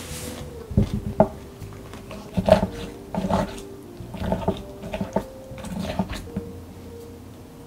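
A wooden spoon stirring and scooping thick Greek yogurt, granola and strawberries in a glass tumbler: a series of short scrapes and knocks, roughly one a second, over soft background music.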